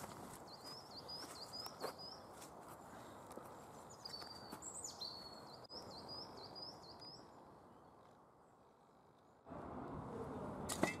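A bird singing two runs of quick, high, repeated chirps, about three a second, over a faint steady background hiss, with a few faint knocks. Near the end the background suddenly turns louder.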